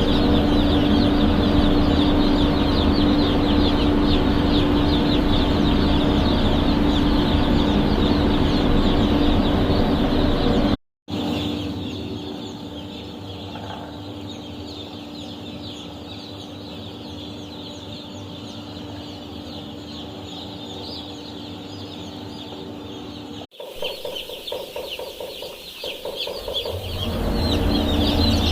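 Dense, continuous peeping of a large flock of two-day-old chicks, over a steady hum. The sound cuts off briefly about eleven seconds in and comes back quieter, then cuts again and grows louder near the end.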